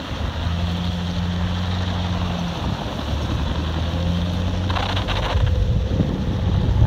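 Jeep's engine running at a low, steady crawl as it drives on TrackIt rubber snow tracks through deep snow, its hum shifting pitch a couple of times. There is a brief rushing hiss about five seconds in, and the rumble grows louder near the end.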